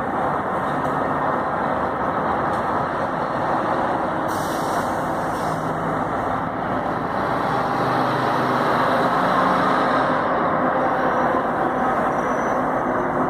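Articulated BRT bus driving past close by, its engine running with a steady low hum over broad road noise. It grows louder for a few seconds past the middle as the bus passes beneath.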